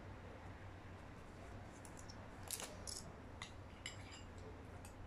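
Faint handling sounds: a few light clicks and taps, spread over a couple of seconds, as seashells are pressed onto the hot-glued side of a small decorated bucket, over a low steady hum.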